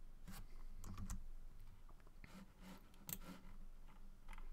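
Faint, irregular clicks of a computer keyboard, a dozen or so scattered keystrokes over a faint low hum.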